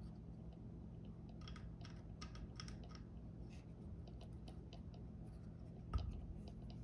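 Faint plastic clicks and taps of a lighted crossbow nock being handled and pressed onto the bowstring, scattered between about one and four seconds in, then one louder tap about six seconds in.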